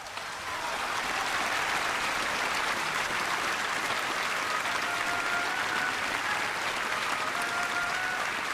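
Concert audience applauding at the end of an opera aria. The applause swells over the first second and then holds steady. In the second half a few short held calls ride over it.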